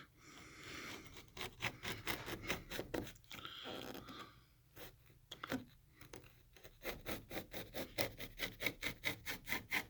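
Putty knife scraping a failed, bumpy shellac finish off old stained wood trim, in quick short strokes of about three to four a second, with brief pauses in between.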